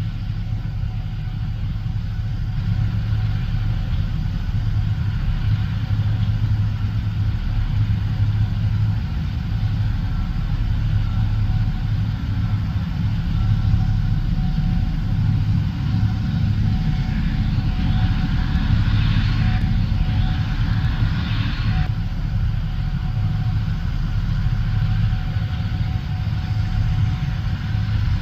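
Gleaner S77 combine running steadily while harvesting corn, a deep engine drone with a faint whine over it. About two-thirds of the way in, a rushing hiss joins for a few seconds.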